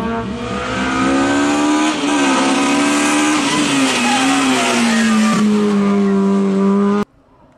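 Honda Civic race car driven hard past at high revs, its engine note climbing as it comes out of the bend, briefly dipping a couple of times, then dropping in pitch as it goes by. The sound cuts off abruptly about seven seconds in.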